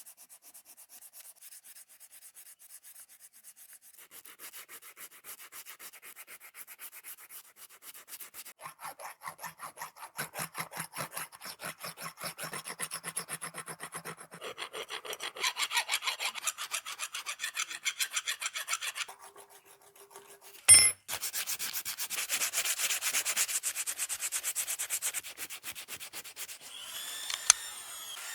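Hand abrasion of metal padlock parts: fast back-and-forth rubbing strokes, as of sandpaper or a file scouring rust, getting louder as it goes. The strokes pause briefly, then a single sharp knock sounds about two-thirds of the way through before the rubbing resumes.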